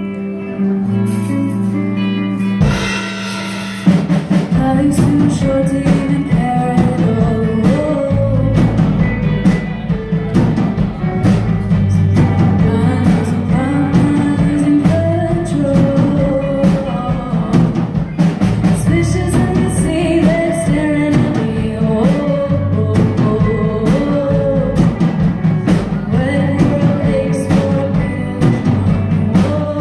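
Live rock band playing: a short instrumental opening, then the drum kit and full band with electric guitars, bass and keyboards come in about four seconds in, with a lead vocalist singing over them.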